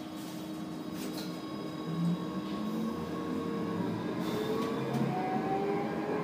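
K4000 Bombardier Flexity light-rail car's traction drive whining over a running rumble, several tones climbing in pitch from about four seconds in as the tram picks up speed.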